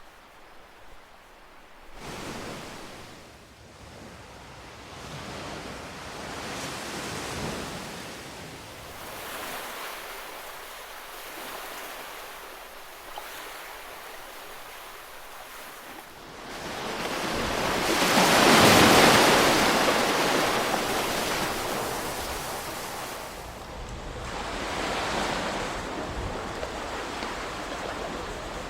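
Ocean waves breaking and washing in, the surf swelling and fading in slow surges every few seconds. The biggest wave crashes about two-thirds of the way through.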